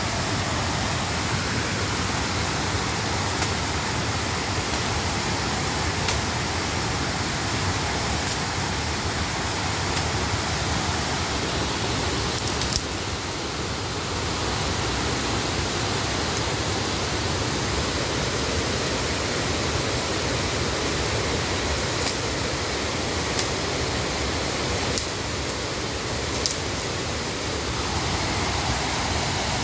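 A river swollen by heavy rain rushing steadily over rapids, heard through the forest. A few faint clicks from footsteps on the trail.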